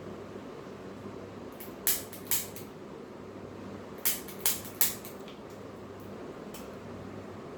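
Five short, sharp cracks in two groups, two about two seconds in and then three in quick succession a couple of seconds later, over a steady low hum: joints popping (cavitating) during a chiropractic neck adjustment.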